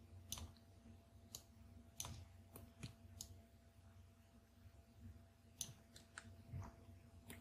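Faint computer mouse clicks, about ten at irregular intervals, over a low steady electrical hum.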